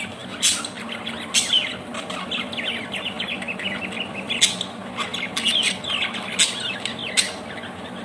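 Budgerigars chattering in a steady stream of rapid chirps, with about five sharper, louder calls scattered through.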